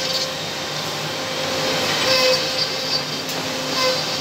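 Taiwanese three-head CNC mortising machine (DOM-3) running, its spindles cutting mortises in curved wooden chair parts: a steady mechanical noise carrying a faint steady tone, swelling with a brighter cutting whine twice.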